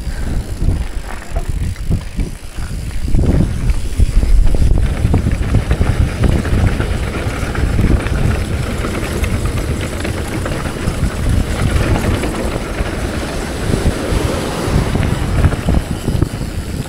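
Mountain bike riding along a trail: uneven tyre rumble and rattle under heavy wind noise on the microphone.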